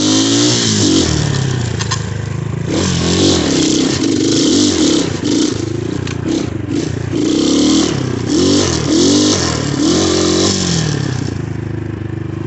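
2019 Xmotos 250cc single-cylinder dirt bike engine running under way, revving up and down again and again as the throttle is opened and closed. It gets quieter near the end.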